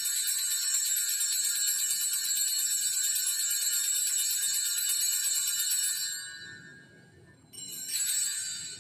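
Altar bells, a cluster of small bells, shaken in a continuous jingling ring for about six seconds at the elevation of the chalice, signalling the consecration; the ringing fades, then a second, shorter ring starts near the end.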